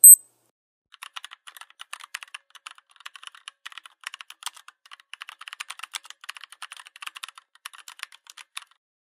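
A brief, high beep, then rapid, continuous typing on a computer keyboard for most of the remaining time, stopping shortly before the end.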